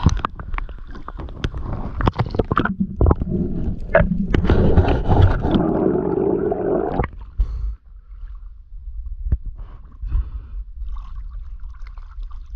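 Water splashing and sloshing around a spearfisher's action camera at the sea surface, full of sharp splashy clicks. About seven seconds in it cuts to a muffled, low underwater sound with a few faint clicks as the camera goes under.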